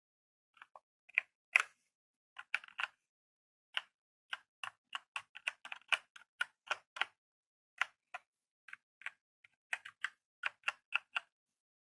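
Keystrokes on an OKER K89 mechanical keyboard with red linear switches: a string of separate key presses at an uneven pace, a few a second, stopping shortly before the end.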